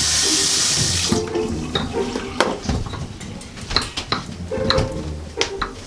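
Bathroom sink tap running for about a second, then shut off, followed by scattered clicks and knocks of things being handled at the sink.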